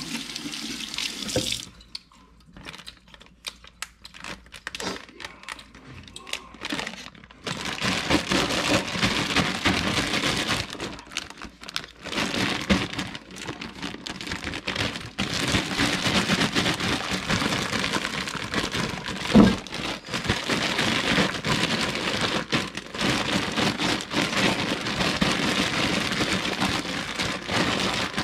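Kitchen tap running into a stainless-steel sink while crabapples are rinsed in a plastic zip-top bag. The water stops about two seconds in, leaving plastic crinkling and light knocks, and runs steadily again from about seven seconds in. There is one sharp knock near the twenty-second mark.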